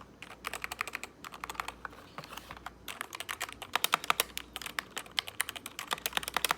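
Spacebar of a SteelSeries Apex Pro TKL mechanical keyboard pressed rapidly and repeatedly as a sound test. It makes a fast run of sharp clacks, several a second, with a brief pause a little under halfway through.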